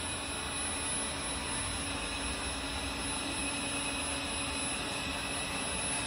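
Hobot window-cleaning robot's suction fan running steadily, a continuous whooshing whir with a faint steady whine, holding the robot against a glass pane while it cleans.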